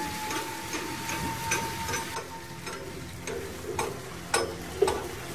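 Persian-wheel well running: its chain of metal buckets tips water into a trough with a steady splashing rush, while the wheel's mechanism clicks and knocks irregularly, with two sharper knocks about four and a half seconds in. A thin steady whine stops about two seconds in.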